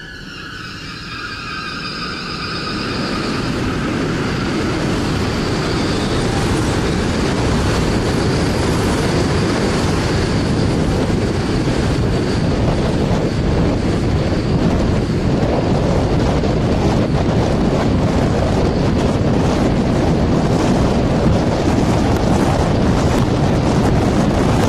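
Twin-boom human centrifuge running up to speed: a loud rushing, rumbling noise that builds over the first several seconds and then holds steady. A few high whining tones at the start fade out within about ten seconds.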